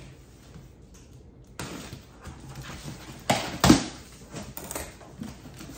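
Scissors cutting through packing tape and cardboard on a shipping box. A series of sharp scraping cuts starts about one and a half seconds in, with the loudest two close together near the middle.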